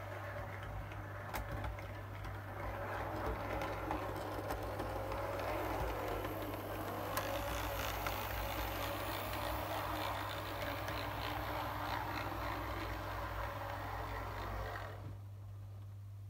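Model Class 156 diesel multiple unit running on the layout: its small electric motor whines, with the pitch dipping and recovering briefly around six seconds in, and its wheels tick over the rail joints. The sound cuts off about 15 seconds in.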